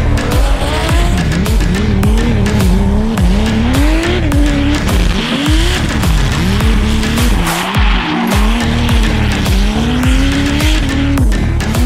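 Drift cars sliding with their engines revving hard, the revs rising and falling again and again with the throttle, and tyres squealing through the slides, with music underneath.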